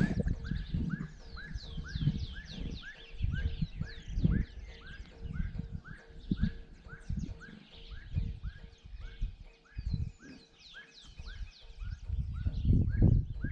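Birds singing: one bird repeats a short chirp about three times a second throughout, with quicker high falling notes above it. Uneven low gusts of wind buffet the microphone, loudest near the end.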